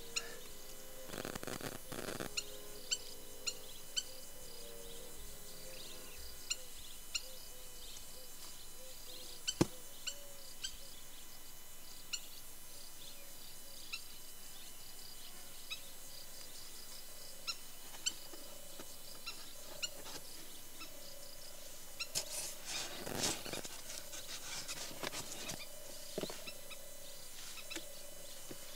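Small birds chirping in short scattered calls over quiet outdoor background, with a faint wavering low tone coming and going. A single sharp click sounds about ten seconds in, and a brief rustle comes later on.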